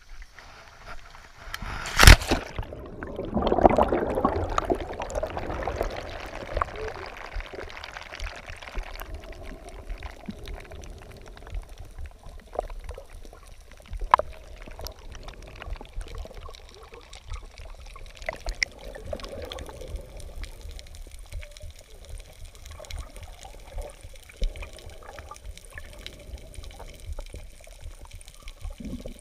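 A sharp splash about two seconds in as the camera enters the sea, then several seconds of rushing, gurgling bubbles. After that comes the steady muffled noise of being underwater, with scattered faint clicks.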